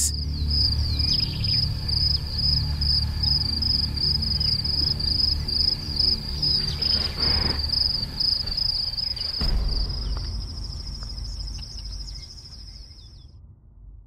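Insects trilling in one steady high-pitched note over a low steady drone; the trill fades out near the end.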